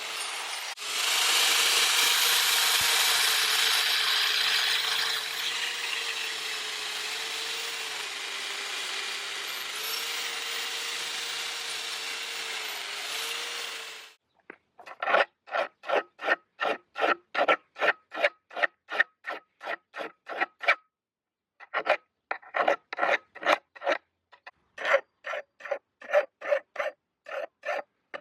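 An angle grinder runs steadily for about the first half, then cuts off. Then a hand file or rasp works in quick, even strokes, about two a second, with one short pause.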